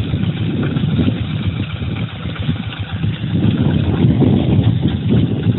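Two-wheel hand tractor's engine chugging steadily while it pulls a plow through rice stubble, growing louder a little over halfway through.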